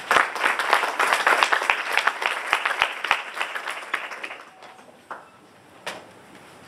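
Audience applauding, fading out after about four seconds; then two single knocks.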